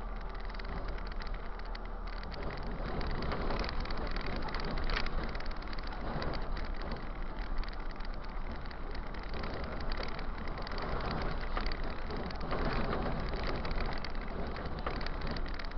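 Steady engine and tyre noise inside the cab of a moving city bus, a low drone under a hiss of road noise, with a few short louder rattles from bumps along the way.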